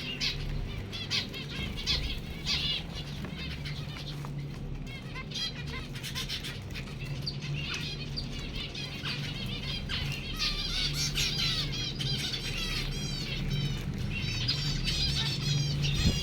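Zebra finches calling: many short repeated calls from several birds, growing busier in the second half, over a steady low hum.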